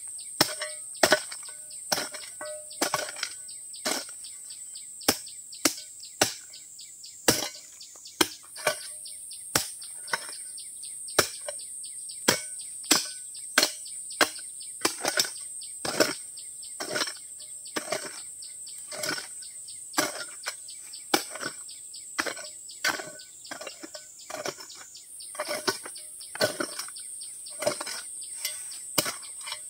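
Repeated chopping strikes, about one or two a second, with a steady high-pitched insect drone behind them.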